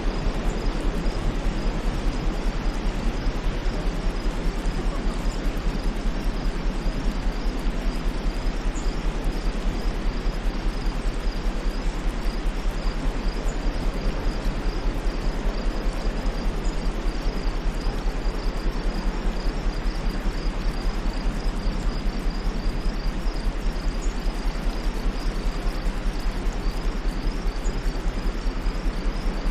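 Steady white noise, an even hiss with no rise or fall, with a faint rapid high-pitched chirping running through it.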